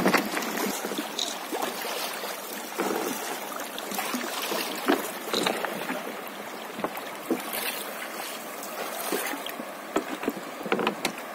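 River water running and lapping around a traditional wooden raft, with scattered short splashes as the raftsman's long pole dips into the water and pushes off the riverbed.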